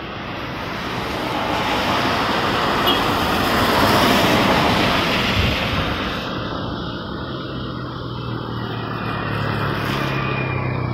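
Vehicles driving past on a rain-wet road. The wet tyre hiss swells to a peak about four seconds in and fades, then a truck's low engine hum builds toward the end.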